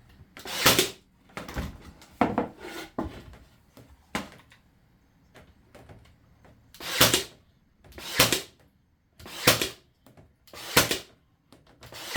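Brad nailer firing nails into timber edging strips: about a dozen sharp shots, several in quick succession at first, then one roughly every second and a quarter.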